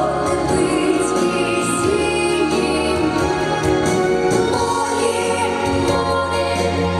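A children's vocal group singing a song over a full instrumental accompaniment with a steady bass line.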